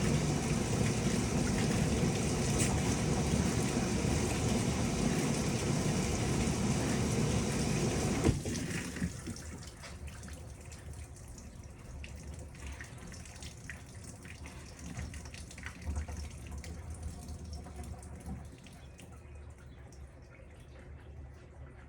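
Panasonic top-loading washing machine filling with water, a steady rushing stream into the tub that cuts off with a click about eight seconds in as the inlet valve closes; afterwards only faint drips and small water sounds.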